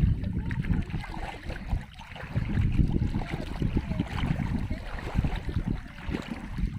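Floodwater sloshing and splashing, with wind buffeting the microphone.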